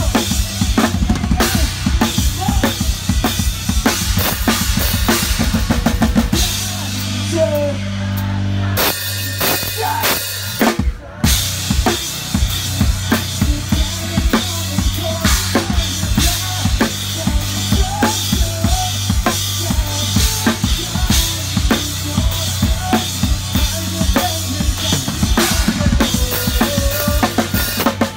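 Rock drum kit played live and heard up close, with bass drum, snare and cymbals driving the beat over the band. About a third of the way in, the beat drops back to a held note and a few sparse hits, then comes back in.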